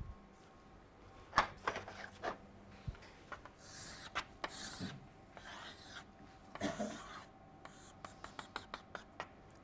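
Chalk on a blackboard: scattered sharp taps and short scratchy strokes, faint.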